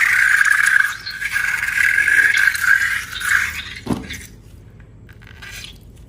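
Air hissing and squealing steadily out of a stretched balloon neck, stopping about three and a half seconds in, followed by a short rubbery snap just before four seconds.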